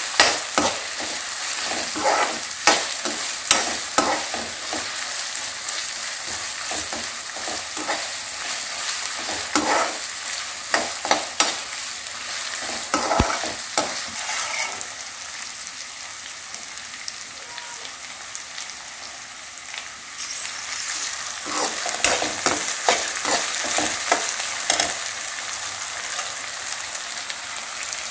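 Chopped onion, green chillies and capsicum sizzling in oil in an aluminium kadai, with a perforated steel skimmer stirring them and scraping and clinking against the pan in spells. The stirring lets up for several seconds midway, leaving a steady sizzle, then picks up again.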